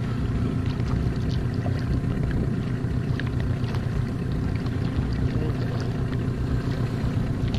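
Inflatable dinghy's outboard motor running steadily, mixed with wind on the microphone and choppy water splashing against the hull.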